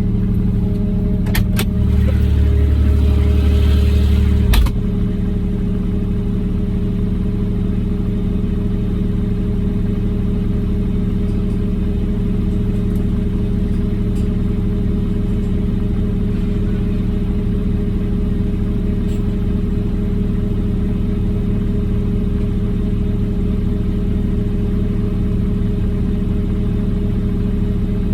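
Kubota RTV 1100 utility vehicle's three-cylinder diesel engine running steadily. A few sharp clicks and a brief heavier rumble come in the first five seconds, then the engine hum goes on unchanged.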